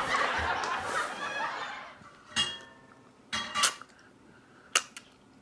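A noisy rush for about the first two seconds, then a spoon clinking against a soup bowl a few times, each clink ringing briefly.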